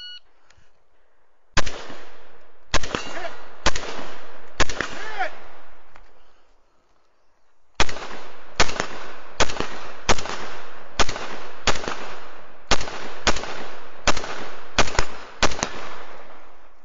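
A shot timer's start beep, then rapid semi-automatic rifle fire: about five quick shots, a pause of a couple of seconds, then a faster string of about a dozen more.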